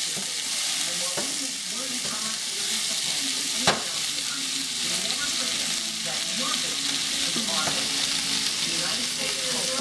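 Cherry tomatoes, onions and garlic sizzling steadily in a frying pan as they cook down. A single sharp knock comes a little under four seconds in.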